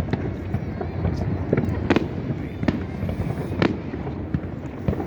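Aerial fireworks shells bursting in quick succession: a dense barrage of overlapping booms and bangs, the heaviest about two, two and a half and three and a half seconds in, deep enough to be felt in the chest.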